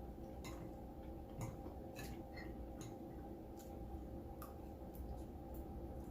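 Close-up chewing of crunchy buttered bread: scattered crisp crunches and mouth clicks at irregular intervals, over a steady low hum.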